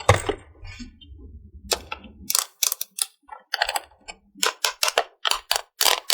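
Hard plastic toy pieces being handled and set down. There is a sharp click at the start and a low rumble for about two seconds, then an irregular run of sharp clicks and taps, two or three a second.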